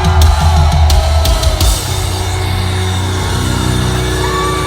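Heavy metal band playing live at high volume: rapid pounding kick drums and cymbal crashes for the first couple of seconds, giving way to a steady held low guitar and bass drone.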